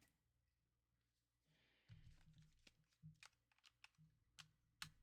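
Near silence, with a scatter of faint, short clicks and taps from about two seconds in, the last one the loudest: small parts being handled, a battery and its charge meter being hooked up.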